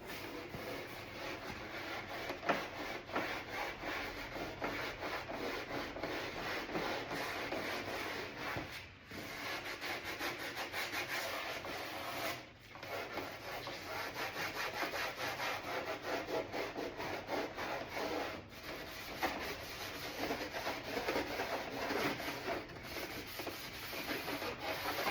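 Emery cloth rubbed fast by hand over a textured plastic door panel, scuffing the surface as prep so paint will adhere. The strokes run on continuously with a few brief pauses.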